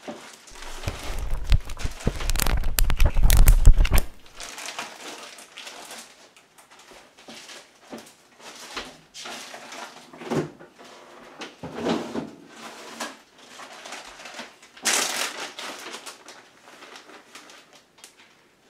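Plastic packaging rustling and crinkling with scattered knocks as tortillas and a bag of shredded cheese are handled. The first four seconds hold the loudest, deepest rustling and bumping, and there is another short burst of rustling about fifteen seconds in.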